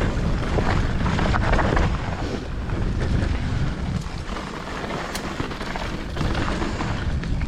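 Wind rushing over the microphone and the rumble of tyres rolling over a dirt trail as a mountain bike is ridden at speed.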